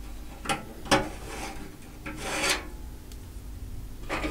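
Metal hard-drive trays being slid out of a computer case's drive bay: two sharp clicks, then two scraping slides of metal on metal, and another click near the end.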